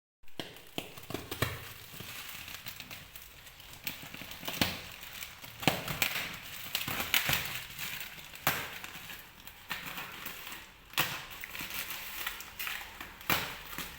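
Laptop packaging being handled and opened: crinkling and rustling of plastic and cardboard with frequent sharp clicks and knocks.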